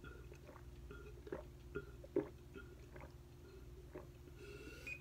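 Rapid gulping and swallowing of water from a glass being drained in one go, a soft wet gulp about every half second.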